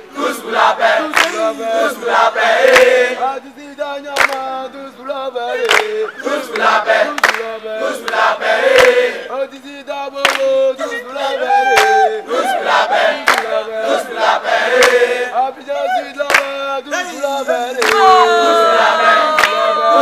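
Group of young voices singing an unaccompanied chant-like song together, with sharp hand claps repeating through it. Near the end the voices swell into a loud, held shout that falls in pitch.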